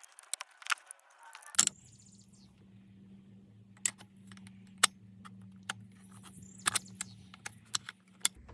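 Sharp clicks and small metallic rattles, like keys or car trim parts being handled. A low steady hum comes on about one and a half seconds in and stops just before the end.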